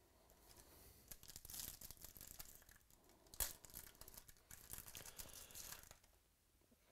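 Foil wrapper of a 2015 Bowman's Best baseball card pack crinkling and being torn open by hand, faint, with one sharp rip about three and a half seconds in.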